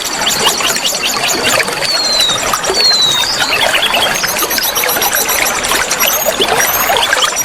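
Oriental magpie-robin (kacer) song, a busy run of varied chirps, short trills and a few falling whistles, over a steady trickle of running water.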